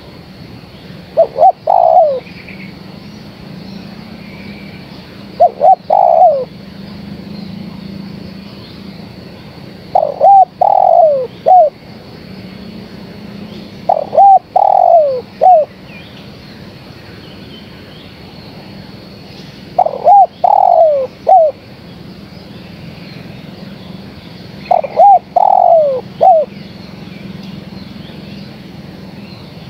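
Spotted dove cooing: six short phrases of a few falling coos each, coming about every four to five seconds over a faint steady hum. It is a female's call to males, used as a lure.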